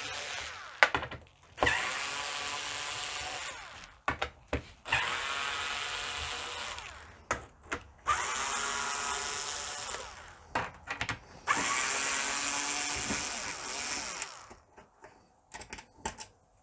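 Cordless electric screwdriver with a Torx T15 bit backing out the screws that hold a dishwasher's control panel. It whirs steadily in runs of two to three seconds, with short clicks and knocks between the runs as each screw comes free and the bit moves to the next.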